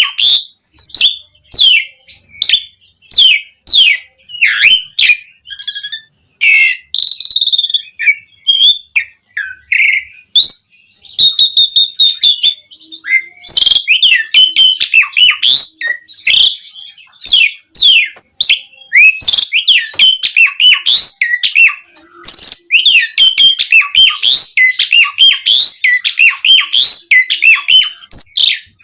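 Jalak uren (pied starling) singing loudly: a rapid string of sliding whistles and chirps. The notes thin out for a few seconds in the first half, then come thick and fast through the second half.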